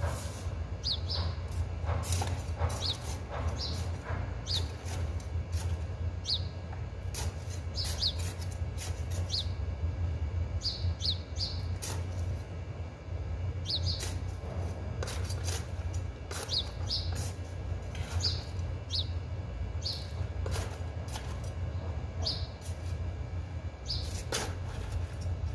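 Small birds chirping in short, scattered high notes over a steady low hum, with irregular scrapes and knocks of a metal hand trowel working soil in plastic plant pots.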